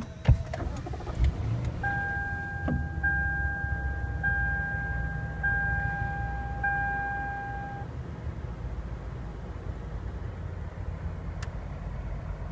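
2014 Lexus LS 460 F Sport's 4.6-litre V8 starting at the press of the push-button start and settling into a steady low idle, heard from inside the cabin. About two seconds in, the car's electronic chime sounds five times in a row, each about a second long.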